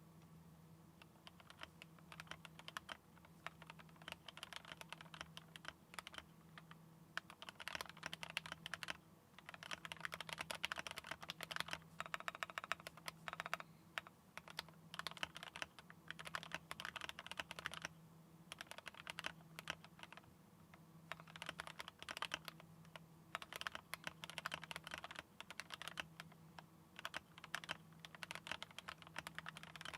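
Typing on a GMMK Pro mechanical keyboard with Tealios linear switches: fast, dense key clacks in runs of a few seconds, broken by short pauses.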